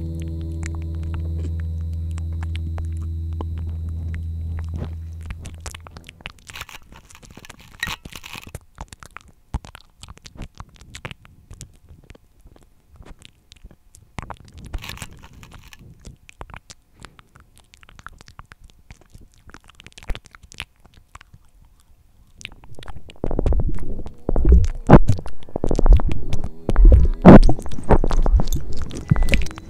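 A sustained low droning tone fades out within the first five seconds. Faint clicks and scrapes of food, plates and a knife being handled follow. From about 23 seconds in, loud low rumbling thuds come in irregular bursts.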